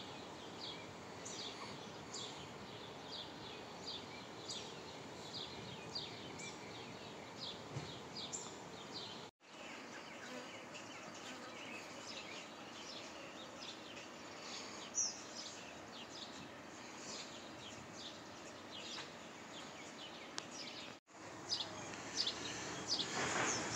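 Outdoor ambience of small birds chirping, many short high chirps over a steady low background hiss. Near the end a louder rising rumble comes in, from cars going by. The sound drops out briefly twice where shots are joined.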